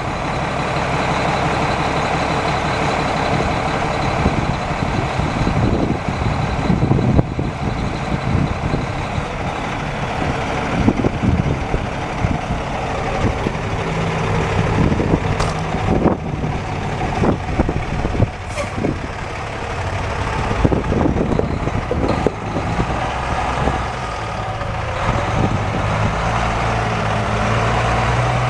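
The Caterpillar 3176 inline-six diesel of a 1993 Peterbilt 357 roll-off truck running, its note shifting with load, with a few sharp knocks in the second half.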